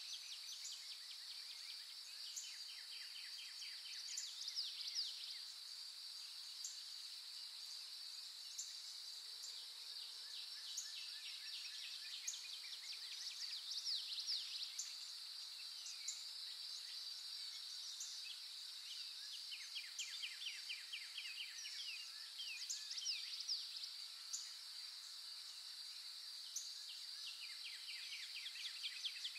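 Outdoor insect and bird ambience: a steady high insect buzz, joined every several seconds by rapid ticking trills and quick rising calls.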